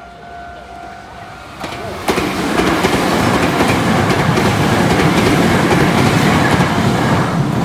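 Meitetsu electric train passing close by at speed. A loud rush of wheels and running gear with a steady clatter over the rail joints starts about two seconds in and lasts to the end. Before it arrives, the level-crossing warning sounds as a steady tone.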